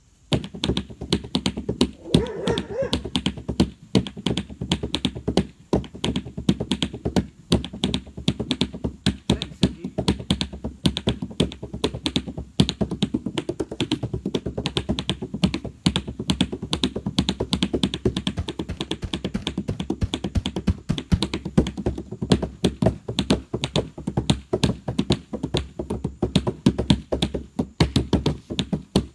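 Hands drumming a fast, steady groove on the side of a canoe hull: many quick taps a second over a low resonance from the boat.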